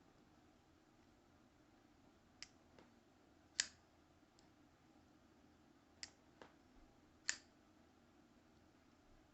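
A QSP Penguin pocket knife being flipped and handled: a couple of light clicks, then a sharp snap of the blade, heard twice.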